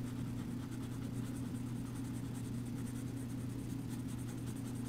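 Black coloured pencil scratching on drawing paper in rapid repeated strokes, colouring in with light pressure, over a steady low hum.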